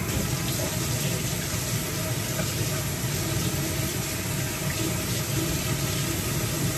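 Kitchen tap turned on and running steadily, water splashing into a sink.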